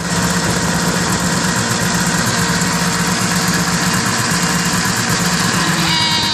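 1975 Arctic Cat Cheetah snowmobile's two-stroke engine running steadily after a Walbro WF-8 carburetor rebuild, which the owner says still struggles. A higher whine of several tones joins near the end.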